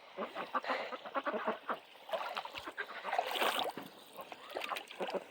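A flock of ducks quacking, many short calls overlapping one another.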